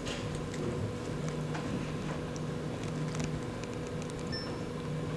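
Room tone: a steady low electrical or mechanical hum, with a few faint clicks and small handling noises.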